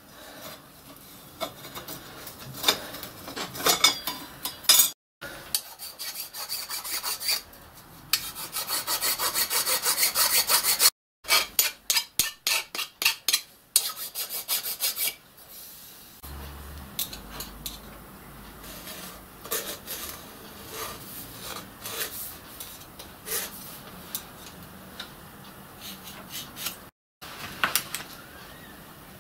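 A hand file and hacksaw work a metal angle bar clamped in a bench vice: spells of rasping back-and-forth strokes. Near the middle there is a quick run of strokes, then a few heavier separate ones. The latter part is quieter, with light knocks and handling of the metal.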